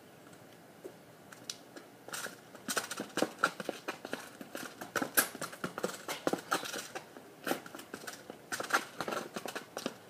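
Quick footsteps and soccer-ball touches on an asphalt driveway: a rapid, irregular run of taps and scuffs starting about two seconds in.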